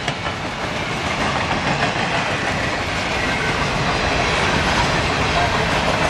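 Empty freight cars rolling past at speed: a steady loud rattle and rumble of steel wheels on the rails, with a faint squeal of wheels now and then.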